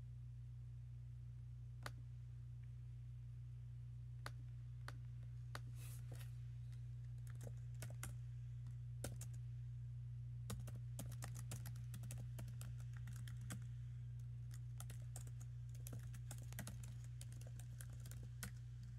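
Typing on a MacBook Air's built-in keyboard: a few scattered clicks in the first half, then a quicker run of keystrokes over the last eight seconds or so. A steady low hum runs underneath.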